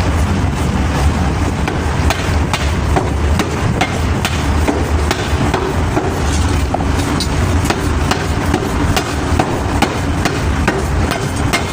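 Hammer blows on metal during forging, struck irregularly about once a second, over a steady low machine hum.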